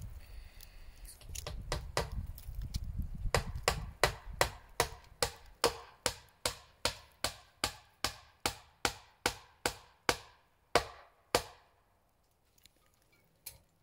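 Hammer driving nails into wood: about twenty quick, even blows, roughly two and a half a second, with the last two a little further apart, then stopping about eleven seconds in.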